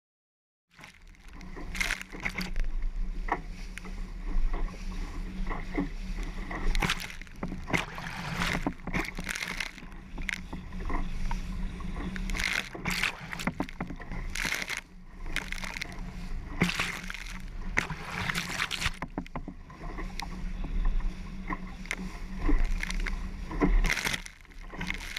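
Bow wave rushing along the hull of a Leisure 17 bilge-keel sailboat under sail, with spray splashing repeatedly over a camera mounted at the waterline and a steady low rumble of wind on the microphone. The sound cuts in abruptly just under a second in.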